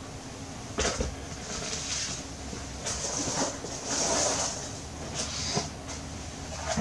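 Carded action-figure packaging, cardboard backing with plastic blister bubbles, rustling and knocking as figures are handled and taken from a storage box, with one sharper knock about a second in.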